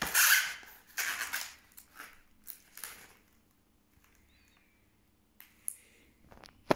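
An HP laptop power adapter and its coiled cable being picked up and handled in a foam packing tray: several loud rustling, scraping bursts in the first three seconds, the loudest at the very start, then quieter, with a sharp click near the end.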